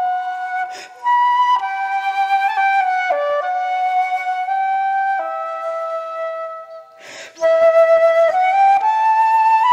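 Background music: a slow flute melody of long held notes moving step by step, with breaths between phrases.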